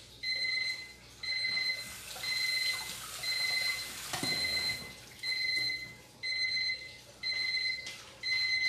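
Oven timer beeping, a high beep about once a second, signalling that the meatballs' baking time is up; it stops near the end.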